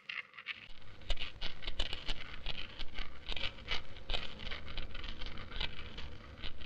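Lime paste being ground and rubbed by hand on a stone slab: quick, irregular scraping and rubbing strokes, several a second.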